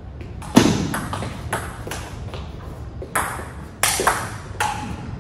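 Table tennis rally: the ball clicking off the paddles and the table in a string of sharp clicks, about one every half second to second. The loudest click comes a little after half a second in.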